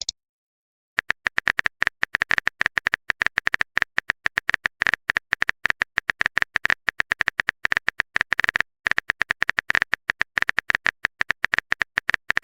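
Rapid, irregular clicks of a keyboard-typing sound effect, several per second, starting about a second in and pausing briefly about two-thirds of the way through.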